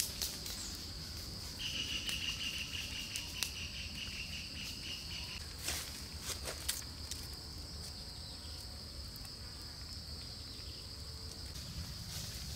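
Forest insects droning steadily at a high pitch, joined by a fast pulsing insect trill from about two seconds in until about five seconds. A few sharp clicks stand out over it.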